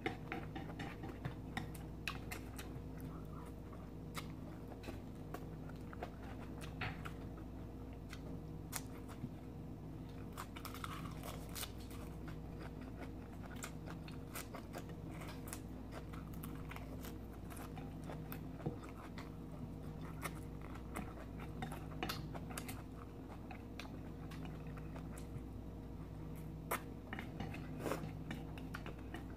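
Close-up chewing and biting of food, stir-fried rice noodles and crisp raw leafy greens, with scattered crunches and small clicks. A low steady hum runs underneath.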